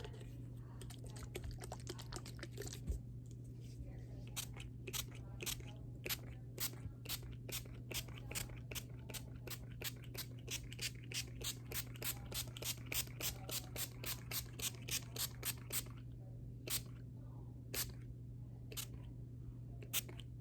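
Close-miked ASMR mouth sounds: sharp wet clicks, scattered at first, then a quick run of about three a second, thinning to a few spaced clicks near the end, over a steady low hum.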